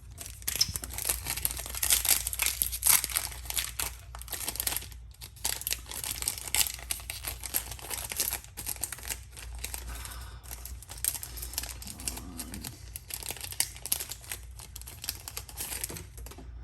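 Plastic card sleeve and foil booster-pack wrapper crinkling in busy bursts with short pauses, with tearing as a Yu-Gi-Oh! pack is opened by hand.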